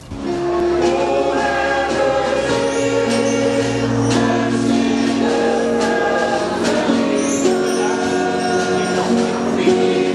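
Mixed choir of men and women singing a Christmas song together in long held notes, with light percussion strokes beneath.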